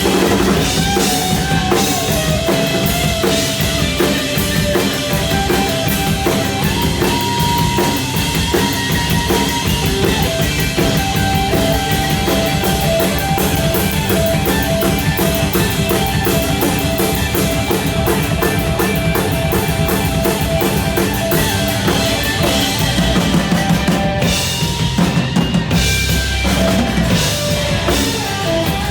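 A band playing an instrumental passage without vocals: a drum kit (kick and snare) keeps a steady beat under pitched instruments, with a brief change in the drumming near the end.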